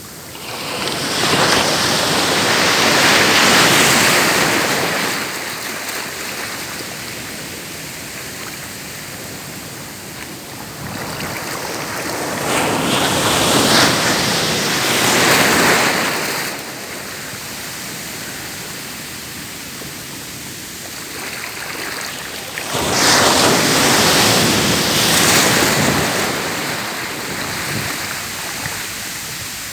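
Sea waves breaking on a shore, three waves about ten seconds apart, each swelling into a loud rush of surf and then drawing back.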